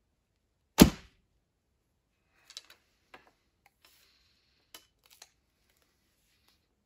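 A traditional recurve bow shot with a thumb-ring release: one sharp crack of the string and arrow, about a second in, with a short echo in the small room. A few faint clicks and rustles follow as arrows and gear are handled.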